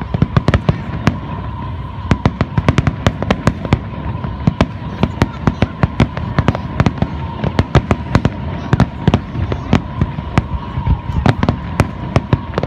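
Fireworks display: aerial shells bursting in rapid volleys, many sharp bangs a second in dense clusters over a continuous low rumble.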